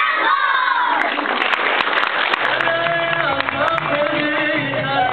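Audience and children's voices in a hall with some clapping, then music starts about halfway through: held notes over a steady bass line.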